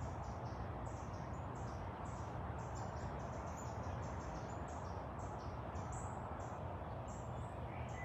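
Outdoor ambience of high, short chirps repeating several times a second, with a steady hiss and a low rumble beneath.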